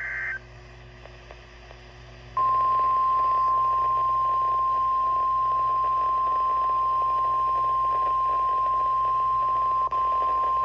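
NOAA Weather Radio Emergency Alert System signal: the tail of the digital SAME header data tones cuts off just after the start. After about two seconds of faint radio hiss, the single steady 1050 Hz warning alarm tone comes on and holds, with one brief dropout near the end.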